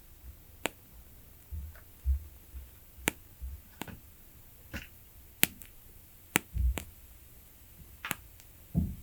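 Wooden candle wick crackling as it burns, with sharp irregular pops a second or so apart, and a few dull low thumps between them.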